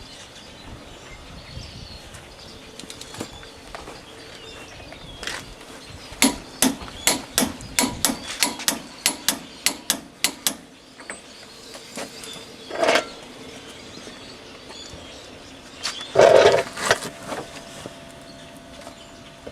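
Birds calling in the background. About six seconds in comes a run of about a dozen sharp knocks, roughly three a second, and two louder short bursts follow later.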